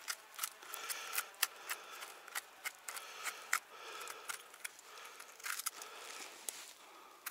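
Knife blade scraping and trimming the dirty base of a freshly picked porcini stem: a run of short, sharp scrapes and clicks, a few each second.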